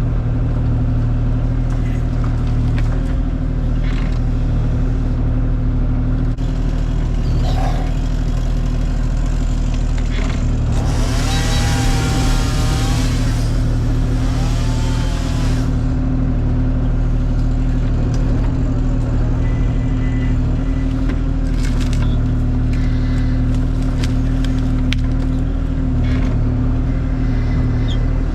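Kubota KX040 mini excavator's diesel engine running steadily at working speed, with scattered knocks and clicks. A louder burst of hiss and crackle comes a little before the middle and lasts about four seconds.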